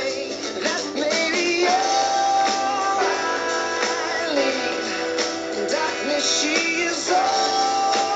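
A song plays, with a singing voice holding long notes over guitar.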